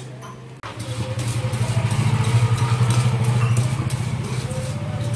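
A steel spoon stirring and scraping dry red poha flakes around a stainless steel kadai, starting under a second in. Under it runs a loud, steady low hum with a fast flutter, like a small motor running.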